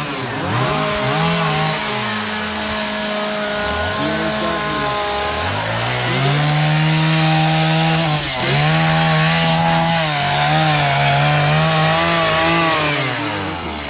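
Chainsaws cutting into wood during chainsaw carving, their engines revving up and down repeatedly. About halfway through they settle into longer stretches of steady high revs, broken by a brief dip, before dropping off near the end.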